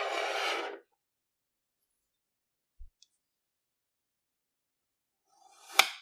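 A knife blade pressing down into kinetic sand: a short gritty rasp that builds to a sharp click near the end. At the start there is about a second of scraping, crumbling noise. Between the two is near silence.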